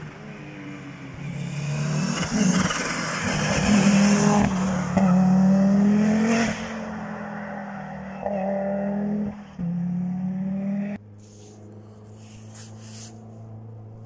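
Historic rally car at full throttle, its engine note climbing and breaking with several quick gear changes as it comes up the road. It is loudest a few seconds in, then drops off suddenly near the end to a quieter, steady low drone.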